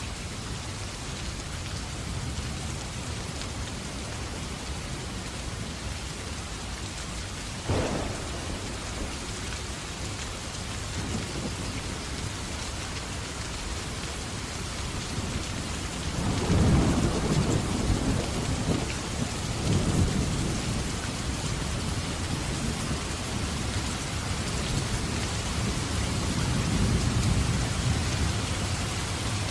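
Steady rain falling, with a single sharp crack about a quarter of the way in and low rolling thunder rumbles through the second half.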